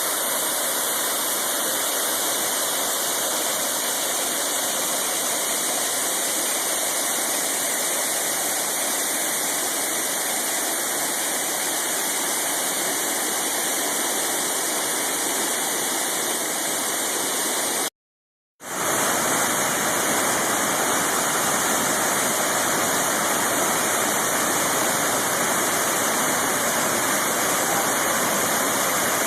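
Waterfall rushing steadily, a dense roar of falling water, cut off for about half a second around two-thirds of the way through where one clip gives way to another waterfall.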